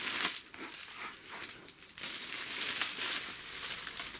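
Clear plastic shrink wrap crinkling as it is pulled off a long cardboard box and crumpled, in uneven rustling stretches, the longest starting about two seconds in.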